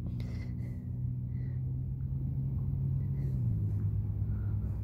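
A steady low motor hum, its pitch dropping slightly about three and a half seconds in.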